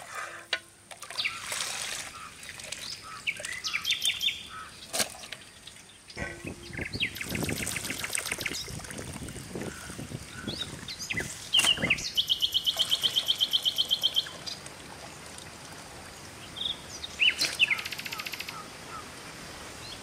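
Birds chirping and calling, with a fast, even trill lasting about two seconds midway, and a couple of sharp knocks.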